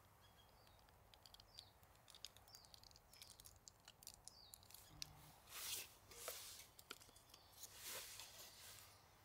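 Faint small-bird chirps, with scattered small clicks and a few short rustles.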